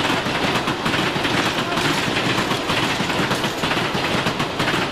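Metropolitan line A Stock electric train running past, its wheels making a rapid, dense clatter over the rails.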